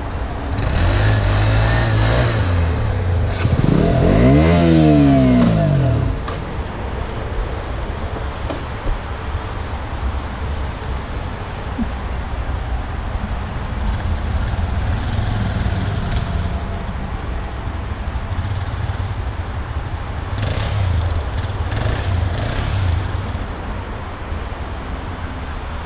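Motorcycle engine running loud for the first few seconds, then revved hard at about four seconds, its pitch sweeping up and falling back. It then settles to a lower, steadier run, with another burst of revs a little after twenty seconds.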